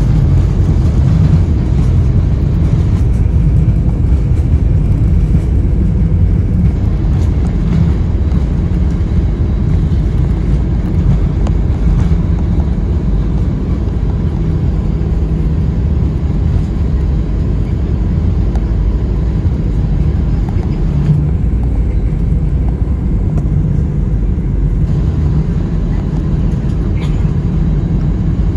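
Steady low rumble inside the cabin of an Airbus A320 with CFM56-5B6 engines as it rolls along the ground after landing.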